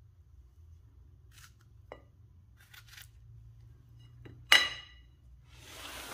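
Kitchen utensils and dishes being handled, with a few small clicks and knocks. About four and a half seconds in comes one sharp, ringing clink of something hard striking a glass or metal bowl. Near the end there is a brief rushing noise.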